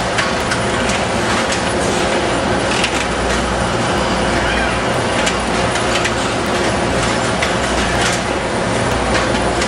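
Continuous loud machinery din of an automated muffin production line with a robotic pin depanner cell, a steady low hum under dense noise, with irregular sharp clicks scattered throughout.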